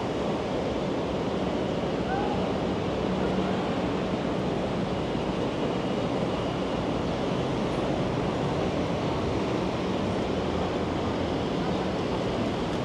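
Steady rumbling rush of a train in motion, with a faint low hum under it.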